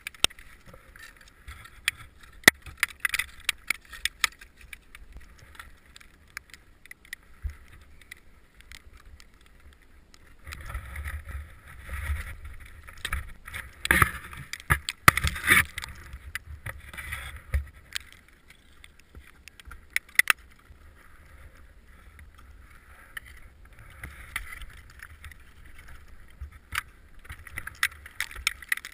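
Ice climber's axes and crampons striking and scraping snowy ice and rock, with clinks of metal gear: irregular sharp knocks over a low rumble, busiest in a stretch of scraping around the middle.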